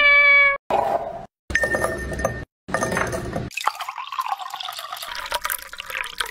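A cat's short meow that ends just after the start, then liquid poured into a tall drinking glass in a few short separate stretches, the longest a steady pour of milk into the glass over jelly cubes.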